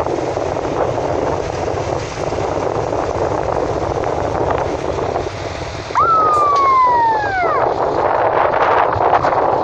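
Wind buffeting the phone's microphone in steady rough gusts. About six seconds in, a single whistle-like tone rises briefly and then falls over a second and a half.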